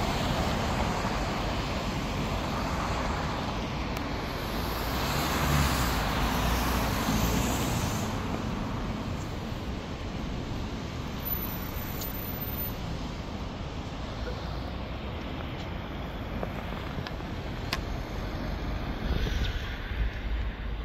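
Road traffic on a city street: cars driving past steadily, growing louder as one passes close about five to seven seconds in.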